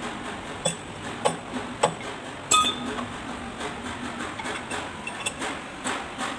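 Metal striking metal: four sharp clinking knocks in the first few seconds, the last ringing briefly with a clear tone, then lighter taps and clinks.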